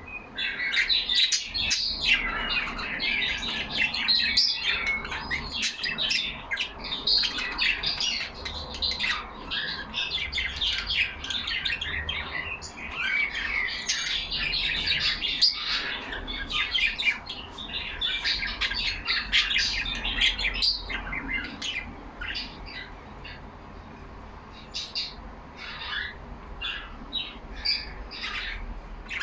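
A group of caged pet parakeets chattering together: a dense, rapid stream of overlapping chirps, warbles and squawks. It thins out for a few seconds late on, then picks up again.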